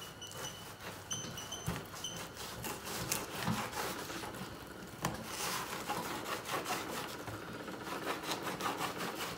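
Fillet knife sawing back and forth between a walleye fillet's skin and flesh and scraping on the table top as the fillet is skinned. A few brief high squeaks come in the first two seconds.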